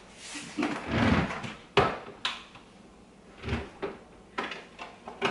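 Clicks and knocks of a bread machine being opened by hand: the lid lifted open and the bread pan handled inside, a string of separate clunks with the fuller thumps about a second in and again past halfway.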